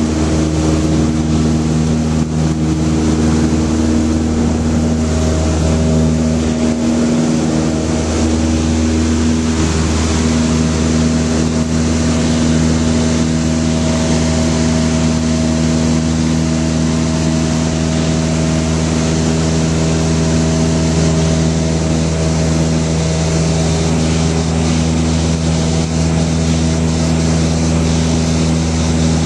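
Single-engine light aircraft's piston engine and propeller running steadily, heard inside the cabin during the climb after takeoff, with rushing air noise over it.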